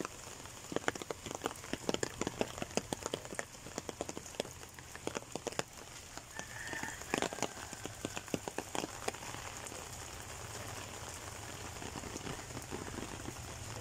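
Rain falling: many sharp, irregular drop hits close by for the first nine seconds or so, then a steadier hiss.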